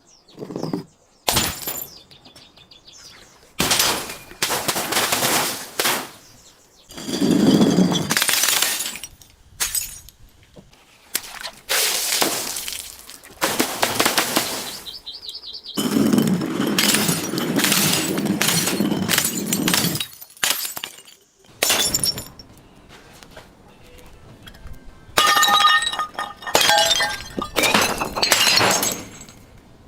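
Glass bottles breaking and being crushed in a series of separate bouts, each a second or two of crunching and shattering, with glass ringing clearly in the later bouts.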